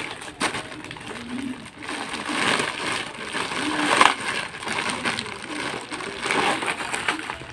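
White plastic packaging bag crinkling and rustling as it is pulled and twisted by hand while being worked open, with irregular crackles, the loudest about four seconds in.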